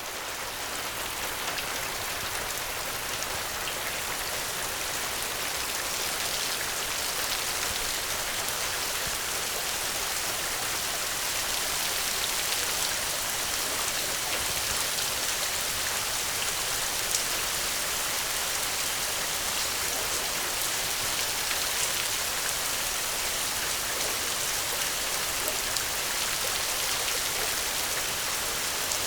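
Steady heavy rain: a dense hiss of falling drops pattering on surfaces, swelling in over the first second or two and then holding even.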